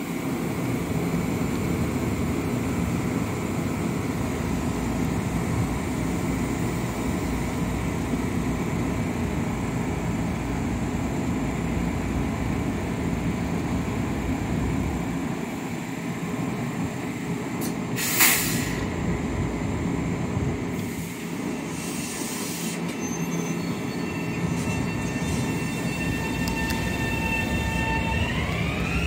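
Long Island Rail Road M7 electric commuter train rolling along the platform: a steady rumble of wheels and running gear, with one sharp clank about two-thirds of the way through. Near the end a whine rises in pitch as the train picks up speed.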